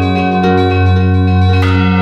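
Church bells ringing, their lingering tones overlapping over a strong low hum. A fresh bell stroke comes about one and a half seconds in.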